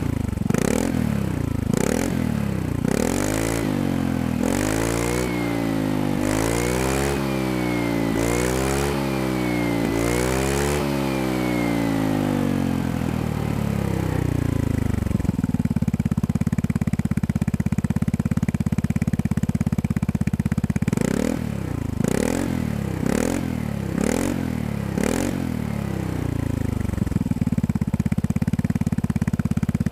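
Vespa Sprint 150's single-cylinder four-stroke engine breathing through a Shijiro Racing 'Baby Monster' aftermarket exhaust fitted with its dB killer baffle, revved on the stand. It gives a few quick blips, then about four long revs that rise and fall, settles to a steady idle, then is blipped about five or six times more near the end before idling again.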